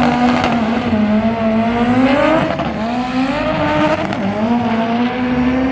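Drag-racing engine running hard at high revs, its pitch wavering up and down.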